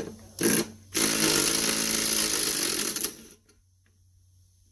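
A small motor-driven machine gives a short burst, then runs loudly for about two seconds and stops.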